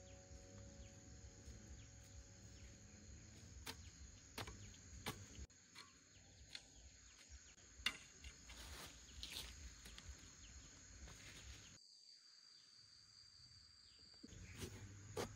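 Faint scattered knocks and scrapes of a hoe blade chopping into soft garden soil, over a quiet rural background. Near the end a steady high insect call runs for about two seconds.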